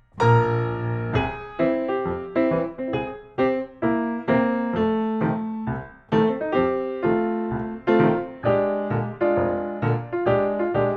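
Background piano music: a light melody of struck notes and chords, a new one about every half second.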